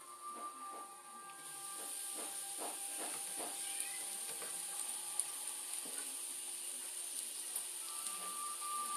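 Shredded-potato hash browns sizzling in butter and oil in a nonstick frying pan, a steady high hiss that gets louder about a second and a half in as the lid comes off. A few light clicks and scrapes of a spatula and lid.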